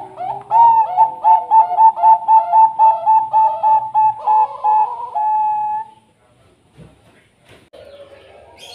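Zebra dove (Bangkok-strain perkutut) singing: a fast run of short cooing notes, about five a second, ending in one longer held note.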